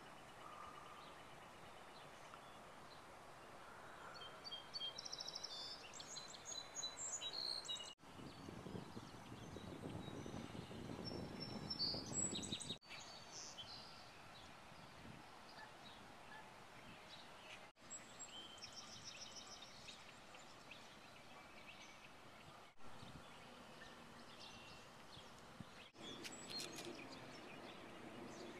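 Outdoor ambience: songbirds chirping on and off over a faint steady hiss. A stretch of low rushing noise comes about eight to twelve seconds in. The sound drops out briefly several times.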